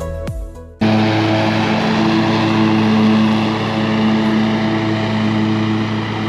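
Background music fades and cuts off under a second in. A lawn mower engine then runs steadily at an even pitch.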